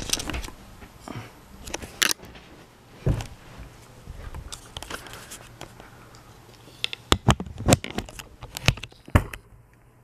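Handling noise from a hand-held camera being moved and re-aimed: irregular knocks, bumps and rubbing on the microphone, with a cluster of sharp knocks near the end. A faint steady low hum runs underneath.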